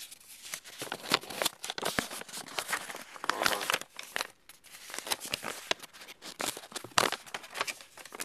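White tissue packing paper crinkling and rustling as it is handled and pulled from a cardboard mailing box, with many sharp crackles.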